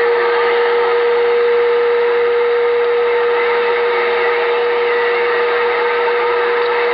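CB radio receiver on lower sideband hissing with band static and skip noise through its speaker, with a steady whistle tone held throughout, the kind of heterodyne an unmodulated carrier makes on sideband.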